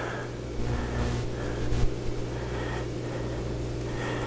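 Large knife sawing through smoked beef brisket on a plastic cutting board, a few soft slicing strokes over a steady low hum.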